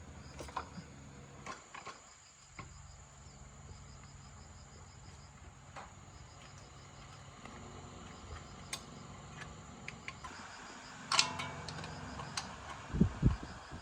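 Scattered metallic clicks and clinks of hand work on a motorbike, with a louder clatter about eleven seconds in and two low thuds near the end. Under it runs a steady low hum and a faint, evenly repeated high chirping like a cricket.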